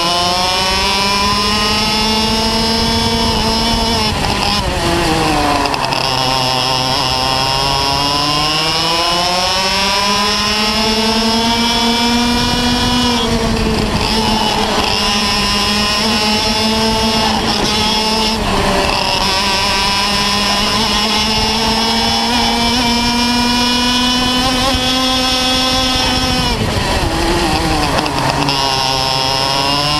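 Parilla two-stroke kart engine running at racing speed, heard from on board. The revs climb slowly and then drop sharply four times as the kart lifts off for corners, rising again on the exits.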